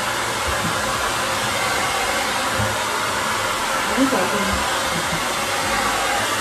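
Hand-held hair dryer running steadily, blowing on a wet dog's coat to dry it.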